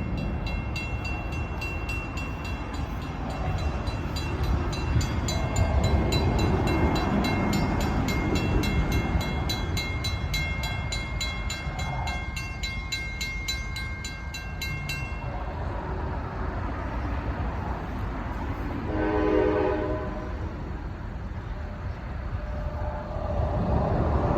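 CSX train's diesel locomotive rumbling past, with a bell ringing rapidly and evenly until it cuts off about fifteen seconds in. The train horn sounds around twenty seconds in and again near the end.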